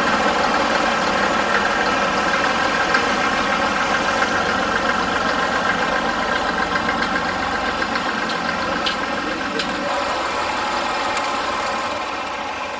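Massey Ferguson 35 tractor running steadily with a New Holland Super 77 hay baler in tow, a steady engine note with a few light mechanical clicks on top, growing slightly fainter towards the end.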